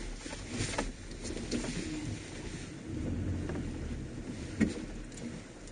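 ATV running at low speed, with a steady low engine rumble and scattered rattles and clicks. The rumble swells briefly near the middle, and a sharp knock comes about four and a half seconds in.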